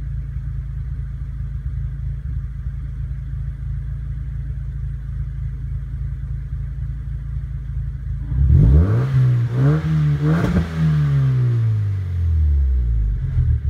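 1999 Mazda MX-5 Miata's 1.8-litre four-cylinder engine idling steadily, then revved once a little over halfway through: the pitch climbs quickly, holds briefly and falls back to idle over the last few seconds.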